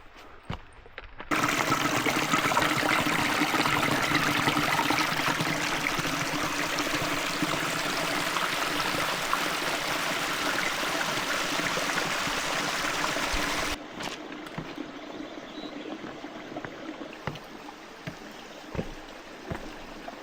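Rushing water of a mountain stream: a loud, even rush that cuts in about a second in and cuts off suddenly after about thirteen seconds. After it there is a quieter outdoor hiss with a few scattered light clicks.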